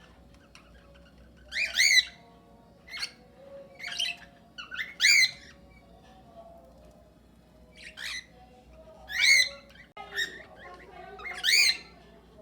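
Cockatiels and budgerigars calling in an aviary: about eight short, loud calls at irregular intervals, with quieter chatter between them.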